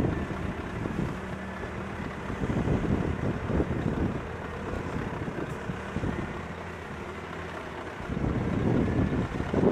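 Heavy diesel engines running steadily at low revs, a wheel loader manoeuvring with a truck standing by, with wind buffeting the microphone and growing louder near the end.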